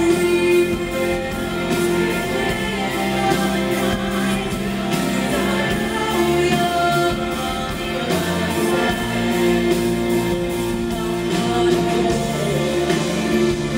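Live pop song: a male solo singer sings into a handheld microphone over band accompaniment.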